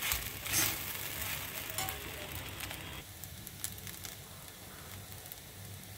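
Soaked sago pearls (sabudana) frying in an oiled pan with a faint sizzle, and a spatula stirring and scraping against the pan. After about three seconds the stirring stops and a quieter sizzle remains.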